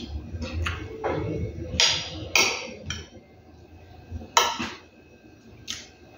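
Metal spoon scraping and clinking against a dinner plate of rice and beans several times, the loudest about four and a half seconds in, with chewing sounds in between.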